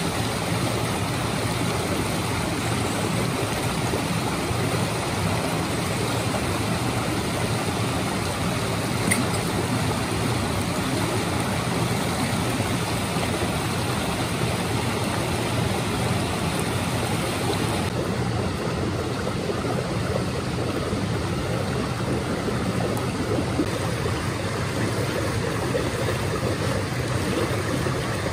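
Steady rushing of flowing water, with a single faint click about nine seconds in.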